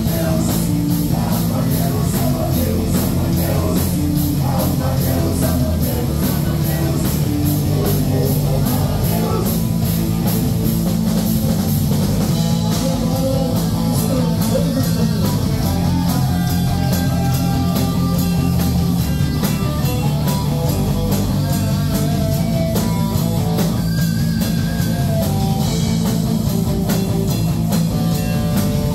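Live rock band playing loudly: electric guitars, keyboards and a drum kit with a steady cymbal beat.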